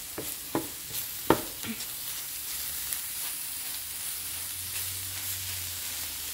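Grated carrots sizzling in a stainless steel pan over low heat, with a wooden spoon stirring and scraping through them. A couple of sharp knocks from the spoon against the pan come in the first second and a half, over a steady sizzle.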